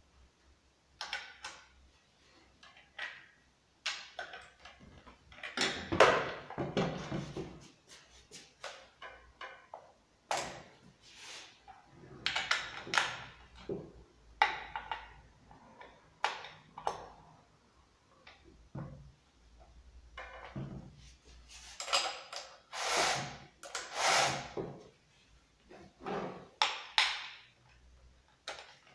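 Parts of a Husqvarna 390XP chainsaw and a small hand tool being handled while the bar and chain are fitted: irregular clicks, knocks and scrapes of metal and plastic, with longer, louder scraping about six seconds in and again in the last third.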